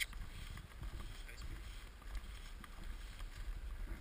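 Faint low wind rumble on the camera's microphone, with a few light clicks.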